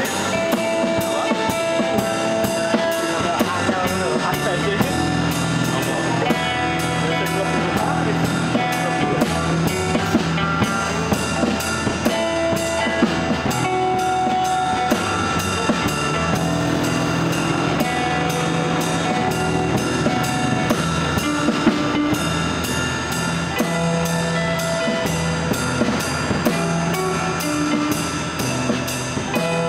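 Acoustic band playing a song: two acoustic guitars strummed over drums and a cymbal keeping a steady beat.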